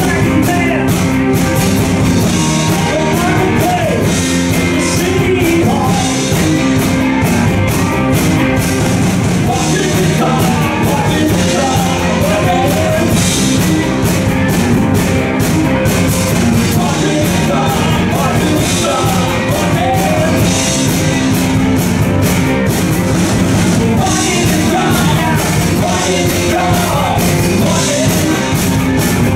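Live rock band playing with electric guitars, electric bass and drums at a steady, even loudness, the drums keeping a regular beat.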